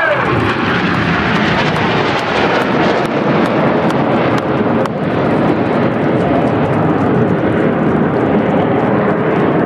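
Steady jet roar from BAE Hawk T1 jets of the Red Arrows, an even rushing noise that holds level without rising or falling.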